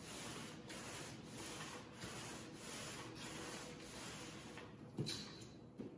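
A primer-loaded 3/8 inch nap paint roller on an extension pole swishing back and forth over a floor in repeated rubbing strokes, spreading primer into a thin, even coat. A short knock about five seconds in and another near the end.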